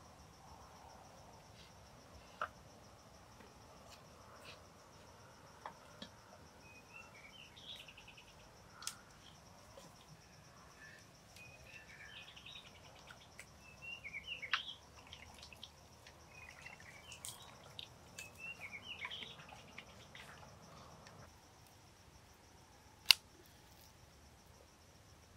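Steady high insect buzzing, with bursts of small bird chirps in the middle. Light knocks and clicks of a pot and kettle being set down on a stone table, and one sharp knock near the end.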